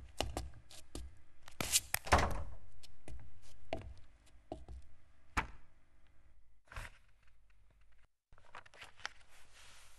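A class of pupils sitting down at their school desks: scattered knocks and thuds of seats and desks being bumped, busiest in the first couple of seconds and thinning out to a few odd knocks after about six seconds.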